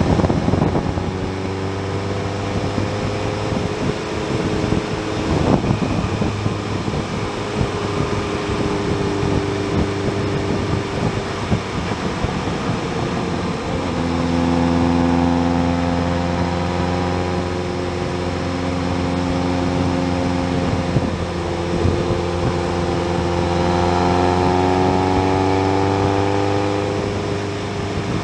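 Motorcycle engine running under way, its pitch rising and falling with the throttle and growing louder about halfway through, over wind noise.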